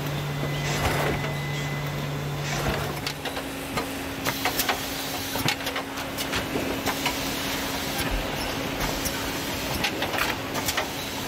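Printing-plant machinery running with a steady hum and frequent clicks and clatter; the hum shifts to a higher note about three seconds in.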